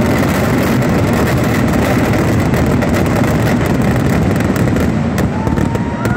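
Massed fireworks barrage: a dense, continuous run of rapid explosions and crackling over a heavy rumble. It thins slightly near the end, where a rising whistle starts.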